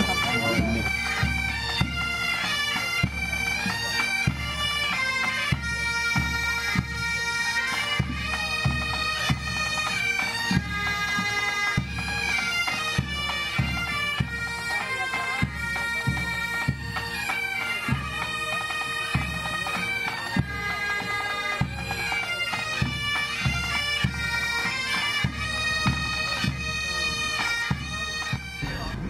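Bagpipes playing a tune over their steady drones, with a regular low beat underneath.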